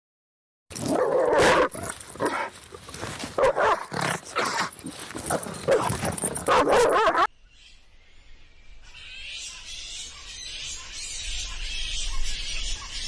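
Loud dog noises for about six seconds, then a sudden cut to a quieter steady high hiss.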